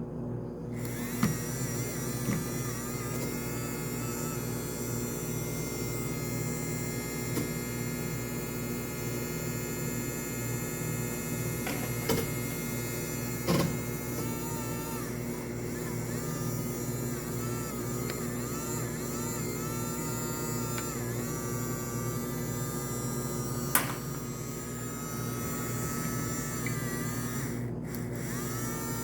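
Mini washing machine's small electric motor running, a steady hum with a higher whine that repeatedly dips and rises in pitch. There are a few short knocks along the way.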